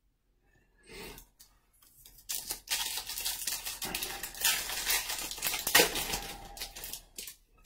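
A foil trading-card pack wrapper being torn open and crinkled: a faint rustle about a second in, then about five seconds of crackling and tearing.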